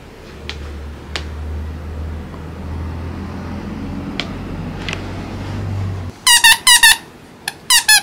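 A squeaky toy squeaked over and over in two quick runs of short, high squeaks, starting about six seconds in, after a low rumble.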